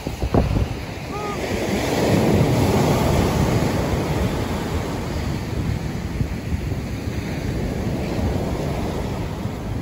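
Ocean surf breaking and washing up the sand, with wind buffeting the microphone. The surf swells louder about two seconds in, then goes on steadily.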